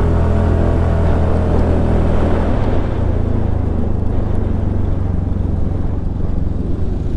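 Suzuki Burgman Street 125 scooter's single-cylinder engine running while riding, with wind and road noise. The engine note shifts slightly about two and a half seconds in.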